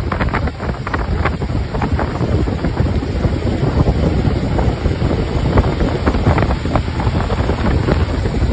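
A 2000 Rinker Fiesta Vee 270 cruiser running fast on open water: wind buffets the microphone over the rush of water and churning wake, with irregular gusty bursts.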